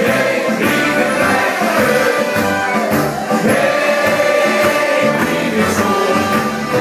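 Carnival song performed live, several men singing together into microphones over a steady beat.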